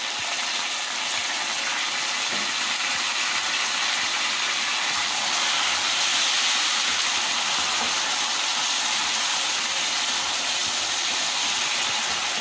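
Chopped tomatoes sizzling in hot cooking oil with golden-fried onions in a saucepan: a steady frying hiss that swells a little midway.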